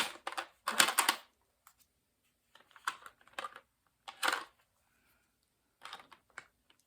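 Small craft supplies being handled on a table, in short clusters of light clicks and rustles with pauses between.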